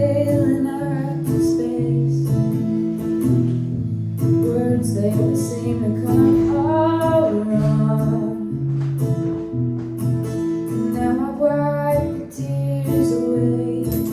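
A woman singing an original folk-style song, accompanied by strummed acoustic guitar chords.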